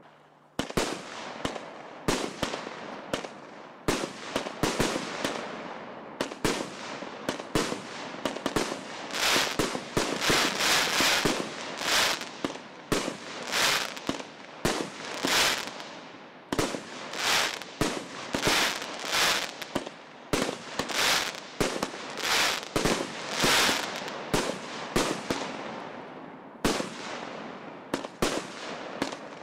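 'Vanilla Sky' multi-shot firework battery firing a long series of shots, roughly one or two a second, with crackling between them.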